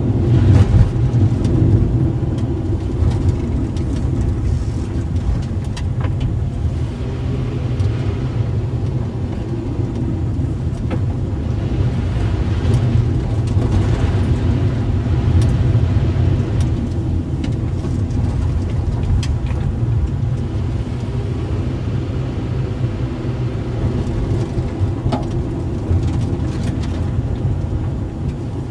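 A car's engine and tyre noise heard from inside the vehicle while driving along a narrow road: a steady low rumble with a few small knocks and clicks scattered through it.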